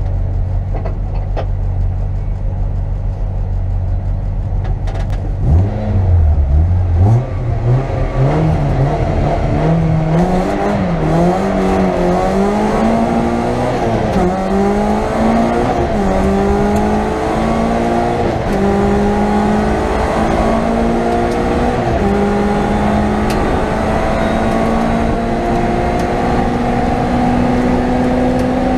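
Citroën Saxo VTS N2 rally car's 1.6-litre 16-valve four-cylinder engine, heard from inside the cabin. It runs steadily for about five seconds, then revs hard, rising in pitch with a drop at each gear change. Later it settles into a steadier note that slowly climbs.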